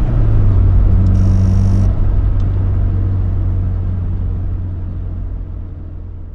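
Nissan CA18DET turbocharged four-cylinder engine running steadily at low revs, a low even drone that gradually fades away.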